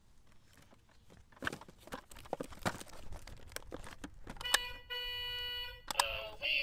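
Boxed plastic toy and its cardboard-and-plastic packaging handled with scattered clicks and rustles, then the toy's electronic sound unit gives a steady beep for about a second and a half and begins playing a tune near the end.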